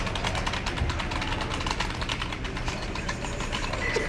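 Rapid, even clicking of a computer keyboard being typed on, over a low steady hum.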